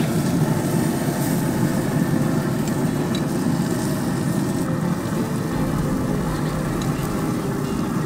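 A grill running, with a steady low roar under the fish fillets cooking on its grates.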